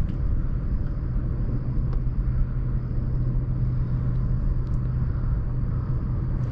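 A steady low engine rumble with a constant low hum, running evenly, with a few faint clicks.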